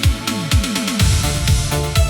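Instrumental Italo disco–style electronic dance music: a quick run of falling-pitch synth drum hits over sustained synth chords, then the kick drum and pulsing bass line come back in about halfway through.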